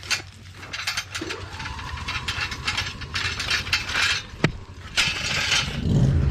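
Irregular mechanical rattling and clicking. About six seconds in, a riding lawnmower engine starts and settles into a steady run.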